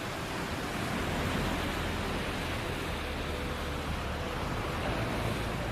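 Steady wash of ocean surf at the shoreline, with a low wind rumble on the microphone.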